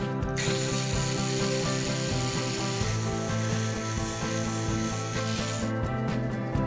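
Angle grinder with a cut-off disc cutting through a steel threaded rod clamped in a vise. It spins up with a rising whine about half a second in, cuts with a steady high grinding noise, and stops abruptly about a second before the end.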